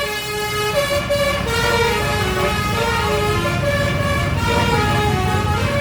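Bus fitted with a Basuri multi-tone melody horn (the Indonesian 'telolet' horn) playing a tune: a run of sustained horn notes stepping from pitch to pitch, with a few short sliding notes near the end, over the steady low sound of the bus engine.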